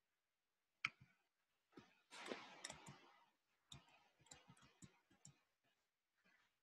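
Faint clicking at a computer, as the screen share is being redone: one sharp click about a second in, a short rustle, then a quick run of about ten clicks.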